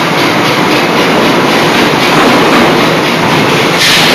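Loud, steady rhythmic clatter of forging machinery running: the die forging hammer and mechanical presses at work. About four seconds in comes a brief sharp hiss.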